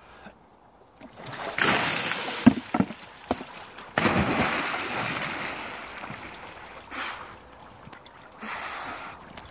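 A rush of water from a bucket being tipped, with a few sharp knocks. About four seconds in comes a sudden big splash into lake water that dies away over a couple of seconds, followed by shorter splashes.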